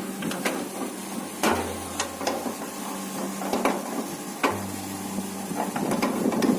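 A run of sharp, irregular clicks and knocks, like small hard objects being handled, over a steady low hum.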